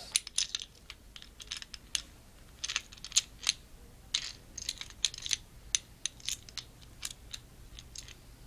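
Gibraltar drum multi-clamp being handled and adjusted: a string of irregular light clicks and clinks, several a second.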